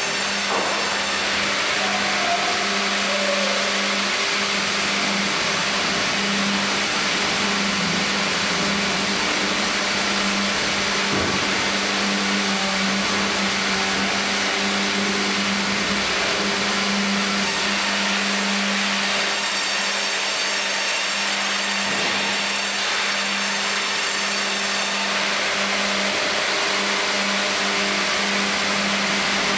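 Industrial tandem band saw and hydraulic log carriage running as the carriage carries a log through the saw. A steady machine hum with a dense hiss over it, unbroken throughout.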